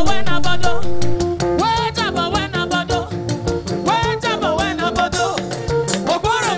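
Upbeat praise music: a choir singing over a live band with a steady, Latin-flavoured percussion beat. The music gets a little quieter about a second in.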